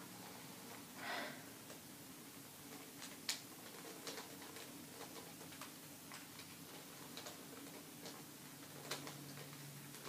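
Plastic clicking of a QJ 3x3 Rubik's cube as its layers are turned with the teeth: scattered sharp clicks, the loudest about three seconds in, with a short rush of breath about a second in.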